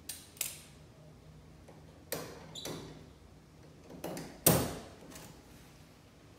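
A handful of separate sharp clicks and knocks from hand tools being worked and handled against the wooden boat hull, the loudest knock about four and a half seconds in.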